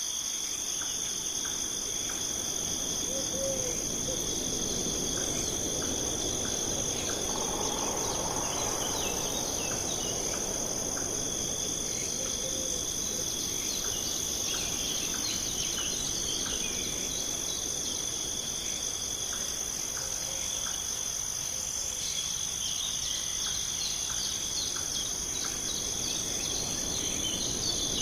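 A chorus of crickets or other insects trilling steadily on two high pitches over a constant low rushing noise, with a few faint short bird chirps scattered through.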